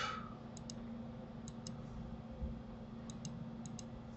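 Computer mouse clicking while the interface is worked: four quick double clicks spread over a few seconds, above a faint steady electrical hum.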